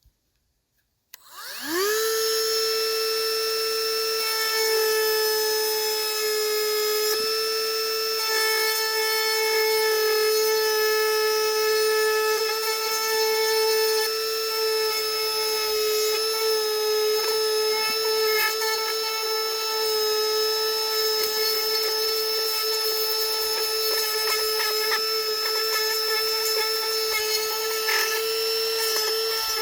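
Dremel rotary tool with a grinding stone spinning up about a second and a half in, then running with a steady high-pitched whine as it grinds open a crack in fiberglass.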